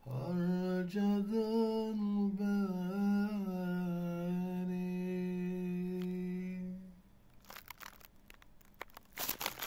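A man's voice singing a slow Turkish song with no accompaniment, drawing out the last line into a long held note that dies away about seven seconds in. Scattered crackling rustles follow, loudest just before the end.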